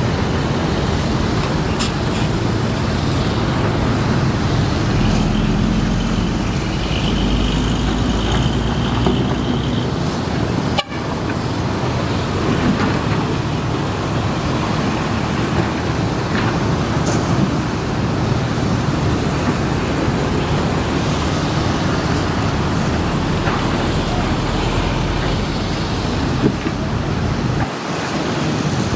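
Matador ME210LC-1 excavator's diesel engine running under load with hydraulic noise as it digs and swings, over steady construction-site and traffic noise. A horn sounds for about three seconds, starting about six seconds in.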